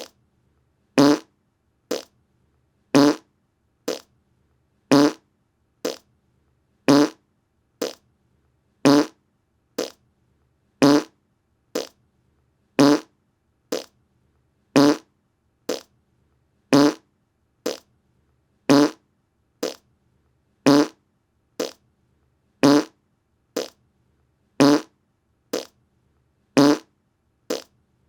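Short fart sounds repeated about once a second, alternating louder and softer blasts, each lasting well under half a second with silence between.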